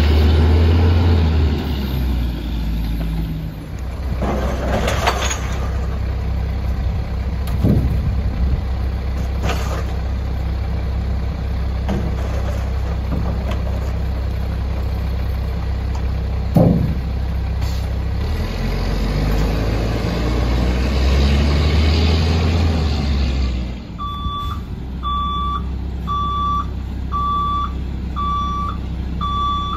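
Mack MR garbage truck's diesel engine running and revving as it moves and stops, with a few sharp bangs as recycling is handled at the rear loader. From about three-quarters of the way in, the truck's reversing alarm beeps steadily about once a second as it backs up.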